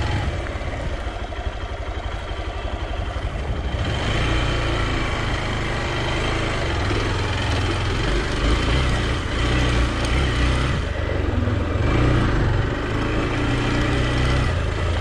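Hero XPulse 200's air-cooled 200 cc single-cylinder engine running at low speed as the motorcycle is ridden over a rough, rocky dirt track. A steady rush of noise rides over the engine, and the sound grows slightly louder about four seconds in.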